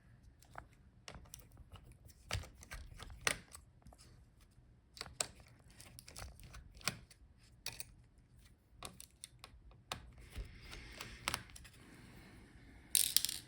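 Faint, scattered clicks and ticks of a small screwdriver undoing the heatsink screws on a Dell Latitude 7410 laptop motherboard, with a brief rustle near the end.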